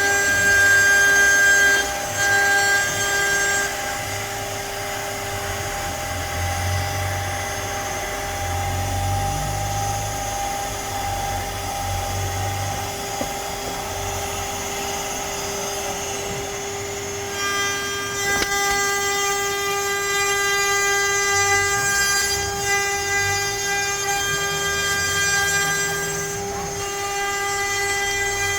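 CNC router spindle running with a steady high whine and its overtones while the bit cuts into pine. A lower hum comes and goes and shifts in pitch as the cut goes on, and the upper tones change a little past halfway.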